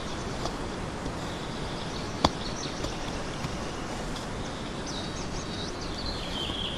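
A hand digging tool scraping and loosening soil in a small hole among roots, with dirt being tossed out and one sharp knock about two seconds in. Birds chirp about five seconds in.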